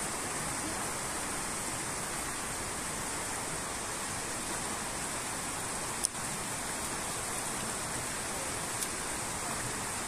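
Steady rushing of running water over a rocky streambed, with a single sharp click about six seconds in.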